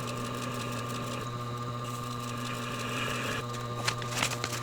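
Tormek water-cooled sharpener's electric motor running steadily with a constant hum. A few light clicks come in near the end.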